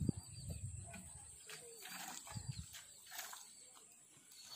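Cow being milked by hand into a plastic can: short spurts of milk hitting the can, one after another, over a steady high hiss, with faint bird chirps near the end.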